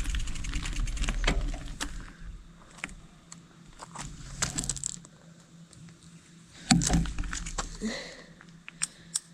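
Scattered small clicks and rattles of gear being handled, with one louder knock about seven seconds in and a few sharp ticks near the end.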